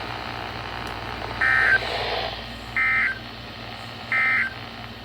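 NOAA Weather Radio end-of-message signal: three short, identical bursts of buzzy SAME digital data tones, about a second and a half apart, over faint radio hiss, marking the end of the warning message.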